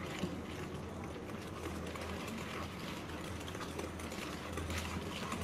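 Spatula beating soft butter and powdered sugar in a mixing bowl: faint, irregular scraping and swishing strokes over a steady low hum.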